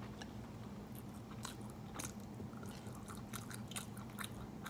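Close-miked chewing of a mouthful of Chapagetti black-bean-sauce noodles, with wet mouth clicks and smacks scattered throughout. A low, steady hum runs underneath.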